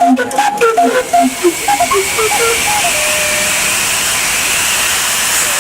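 A steam whistle blows a fast run of short notes that jump up and down in pitch, about four or five a second, like a tune. Near the middle one note is held briefly and fades. After that, steam hisses steadily and loudly.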